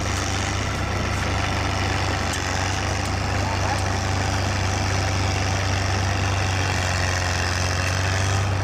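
Snowcat engine idling steadily, a low, even drone.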